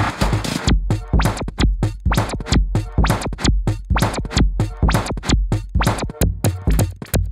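Live electronic music played from a pad controller and keyboard, built from samples of data-centre sounds (struck server cases and a server fan): a fast, chopped beat of about four to five hits a second over a deep bass.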